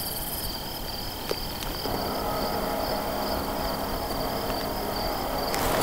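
Field insects trilling in a steady, pulsing high chorus. A couple of small clicks come early, a faint low hum joins about two seconds in, and a short rustle comes near the end.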